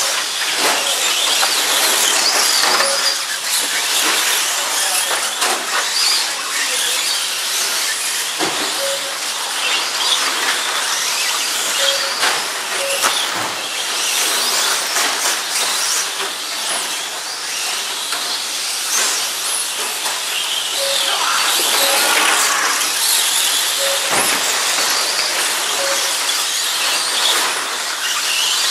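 Radio-controlled 2WD short-course trucks racing on a dirt track: a constant high-pitched whine and hiss from their drivetrains and tyres on the dirt, rising and falling as they pass. Short beeps sound now and then.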